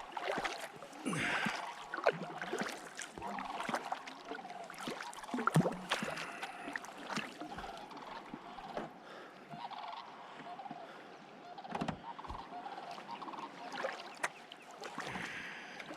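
Kayak paddling: paddle blades dipping and splashing, with water lapping at the hull and a few sharp knocks, some around the middle and a pair about three quarters of the way through.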